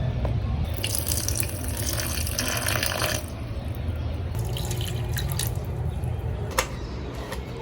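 Water running from a tap into a sink for about two seconds, then drips and light knocks of things being handled in the water, with one sharper knock near the end.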